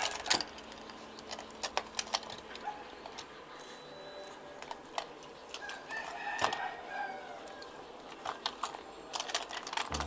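Light, irregular clicks and taps of a Hot Wheels die-cast truck and trailer being handled and hitched together, with a cluster of sharper clicks near the end.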